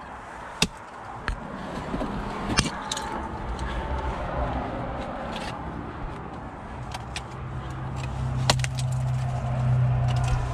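Ice climbing at close range: sharp strikes of an ice tool's pick and crampon points biting into waterfall ice, with climbing gear clinking and jacket rustling against the helmet camera. A low steady hum comes in during the second half.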